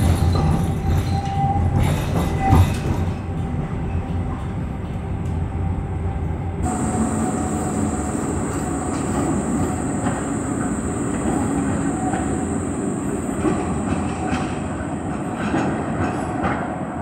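A tram rumbles along from inside the car, with a sharp knock about two and a half seconds in. About seven seconds in the sound changes to a street, where a Škoda 15T tram runs along curved track on cobbles with steady wheel and motor noise and a thin, steady high tone.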